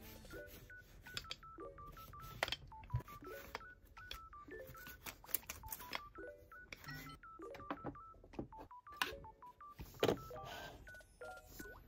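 Background music with a simple beeping lead melody of short notes stepping up and down, and a few light clicks and taps scattered through it.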